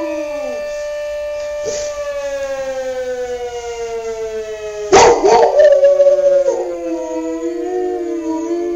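Fire siren sounding one long tone that slowly falls in pitch, winding down. About five seconds in, a dog breaks in loudly and howls along with it in a wavering pitch.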